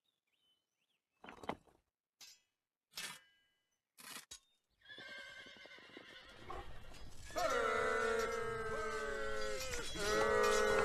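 A few short, separate knocks, then a rumble that swells from about five seconds in, and several horses whinnying loudly together in two long bouts near the end.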